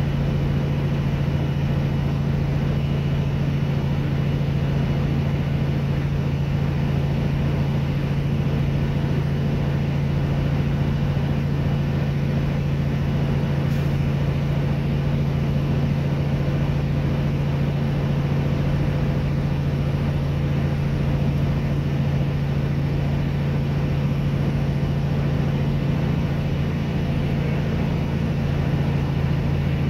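A heavy truck's diesel engine heard from inside the cab: a steady low drone that holds one pitch throughout, as the truck rolls slowly down a long mountain grade.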